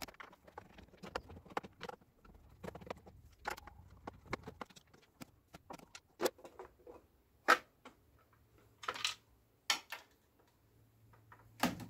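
A plastic electrical enclosure being handled: a run of small plastic clicks, knocks and rattles as its clear hinged lid is opened and its front cover unclipped and lifted off, with a few sharper snaps in the second half.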